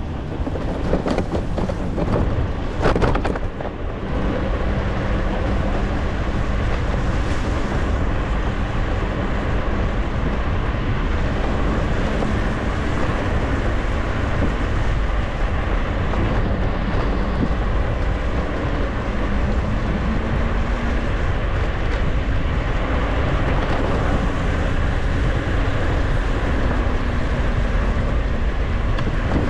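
Steady, loud rumbling noise of wind buffeting the microphone, with a faint low hum underneath and a few sharp knocks in the first three seconds.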